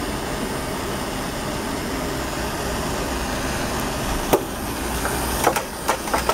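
Bernzomatic gas torch burning with a steady hiss as it heats a copper line on a refrigeration compressor for silver brazing. A few sharp knocks come in the second half as the torch is handled and moved.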